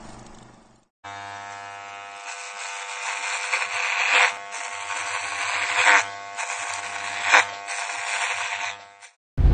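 Electric hair clippers buzzing steadily, starting about a second in and getting louder, with three brief sharper swells, then cutting off abruptly near the end.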